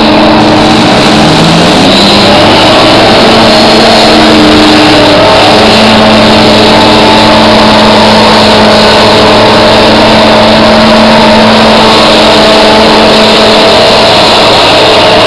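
HoverJet hovercraft running at speed over water: its engine and propulsion fan make a loud, steady drone over a rush of air and spray, with a short rise in pitch about a second in.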